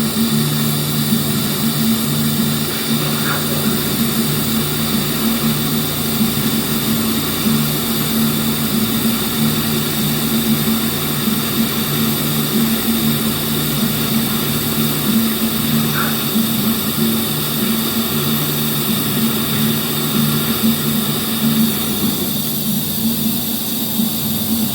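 TIG welding arc running steadily: a constant buzzing hum with an even hiss over it.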